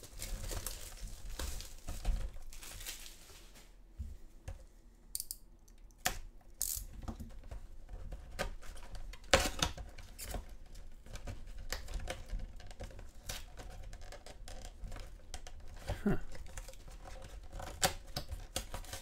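Plastic shrink-wrap crinkling and tearing as it is pulled off a cardboard trading-card box, then the box's lid being bent open and torn along its perforation. Scattered crackles and clicks, with one sharp snap about nine seconds in.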